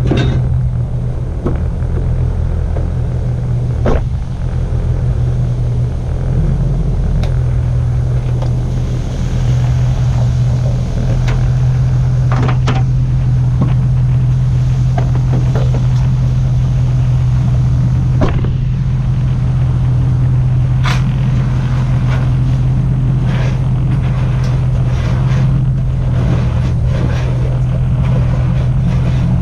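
Pickup truck engine running steadily with a constant low hum, with a few sharp knocks and clicks over it.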